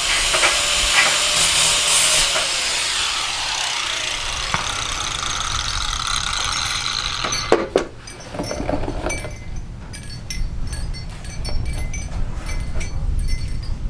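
Angle grinder cutting V notches into steel tubing: a loud steady hiss of abrasive disc on metal that cuts off abruptly about seven and a half seconds in. After that come a couple of knocks and lighter scattered clinks.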